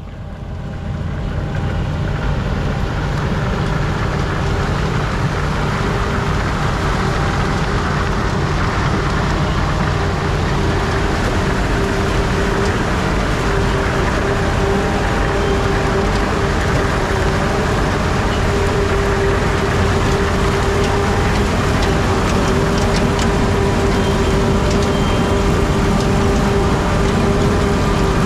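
Ploeger EPD 530 self-propelled pea harvester running, its engine and machinery giving a loud, even drone with a steady whine through it.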